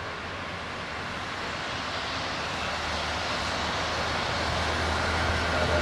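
Boeing 757-200's twin jet engines running as the airliner rolls slowly into position on the runway. The steady jet noise grows louder throughout, with a low hum building from about halfway.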